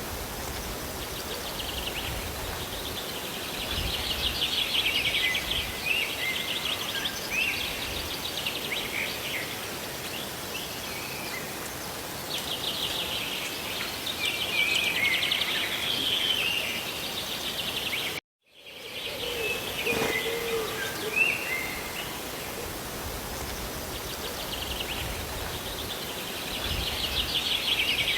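Steady rain and running water with songbirds chirping over it in recurring bouts of rapid trills. The sound drops out completely for a moment about two-thirds of the way through.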